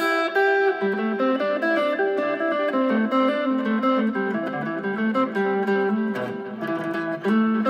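Fender Stratocaster electric guitar playing a melodic line of sustained notes that step up and down in pitch. The playing softens around six seconds in, and a new phrase starts near the end.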